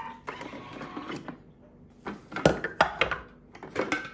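Knocks and clatter of a Thermomix's stainless steel mixing bowl being handled and lifted out of its base, with the loudest knocks in the second half.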